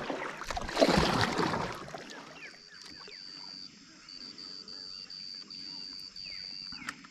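Water splashing and sloshing for about the first two seconds, then a high, even animal call repeating in pulses about half a second long, with a few faint short chirps.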